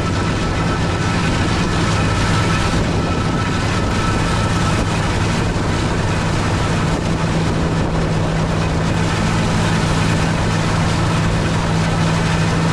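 Combine harvester (header) running steadily under load while harvesting, a continuous engine and threshing drone with a low hum.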